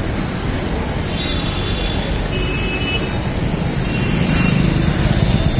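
City street traffic: a steady rumble of engines and tyres from passing cars, scooters and buses, with two brief high-pitched tones partway through.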